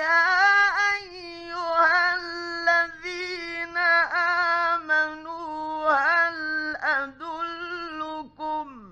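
A male Quran reciter chanting in a drawn-out, ornamented melodic style, the voice high and wavering through long held notes and slides. It is an old late-1950s radio studio recording, with a faint steady hum beneath the voice.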